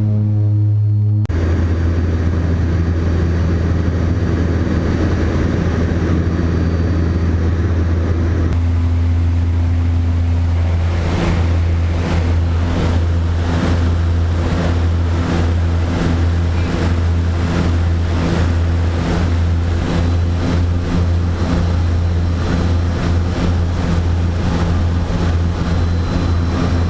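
Snowmobile engine running at a steady cruising speed, a loud continuous drone, with regular jolts in the sound from about eleven seconds in as it travels over rough snow.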